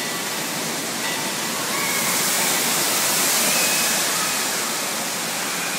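Rushing, spraying water from an indoor water-play structure's fountains and jets, a steady hiss that swells louder for a couple of seconds in the middle.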